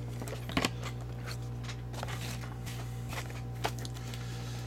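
A few light taps and clicks of trading cards being handled and set down, the sharpest about half a second in, over a steady low electrical hum.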